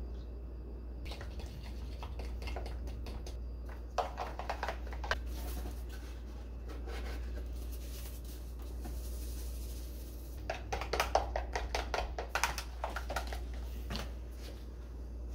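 A wire whisk clicking and scraping rapidly against a plastic tub as batter is mixed, in two short spells, over a low steady hum.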